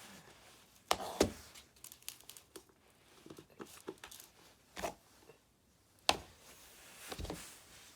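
Irregular clicks and knocks of small plastic and metal RC car parts being handled while a suspension pin is fitted at the stub axle carrier, with several sharper knocks among lighter ticks.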